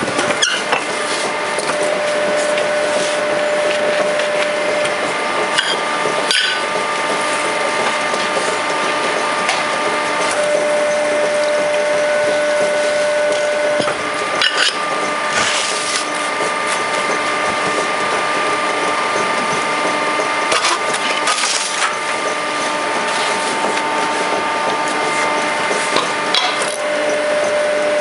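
Motorised soil brick press running: a steady mechanical noise with humming tones that shift now and then, and a few sharp knocks.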